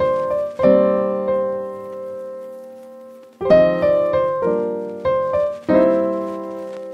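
Background piano music: chords struck and left to ring, one held for about two and a half seconds before the playing resumes.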